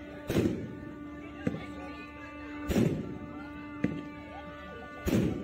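Fireworks bursting overhead: three loud booms about two and a half seconds apart, each with a trailing echo, and smaller sharp cracks between them. Music plays underneath.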